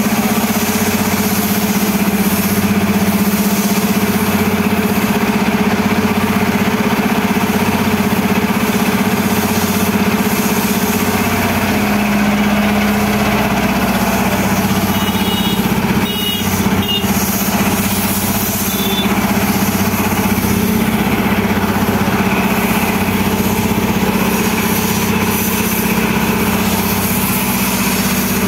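An engine idling steadily, with an even low throb and hum that does not change. A few short high beeps sound about halfway through.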